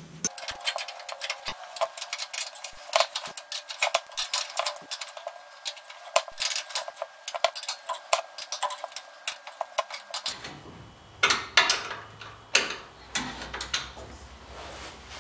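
Hand spanner clicking and clinking on steel nuts and bolts, rapid metallic ticks several times a second, as the rock-slider mounting bolts are tightened by hand without a ratchet.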